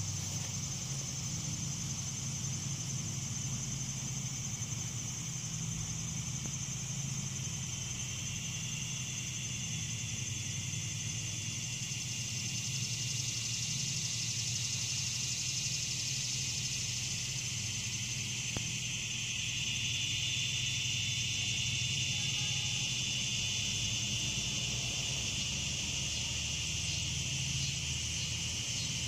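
Steady high-pitched drone of insects calling, at two pitches, the lower one swelling about halfway through, over a faint low hum.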